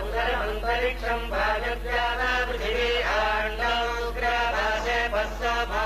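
Vedic mantras chanted by priests in a steady recitation, the phrases following one another without pause, over a low steady hum.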